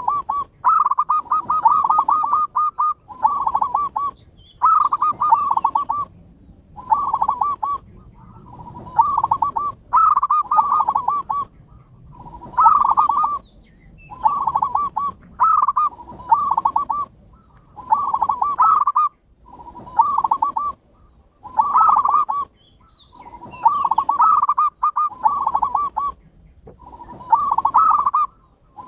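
Zebra doves (perkutut) cooing: a continuous series of short, rapid trilling coo phrases, one every second or two, with no pause.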